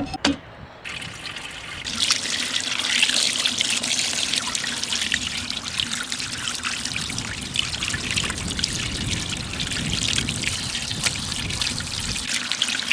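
Running tap water splashing over small shemaya fish as they are washed and their fine scales rinsed off. The water starts about a second in, after a couple of sharp clicks, and runs steadily.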